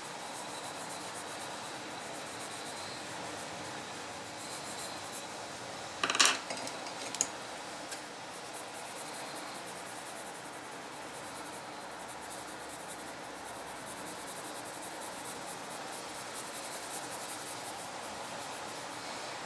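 Coloured pencil rubbing and scratching on paper in shading strokes, over a steady hiss. About six seconds in comes a brief hard clatter with a second click a second later, where the blue pencil is put down and a red one taken up.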